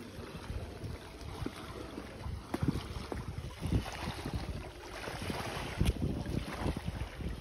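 Wind buffeting the phone's microphone in uneven gusts, with a few louder low thumps.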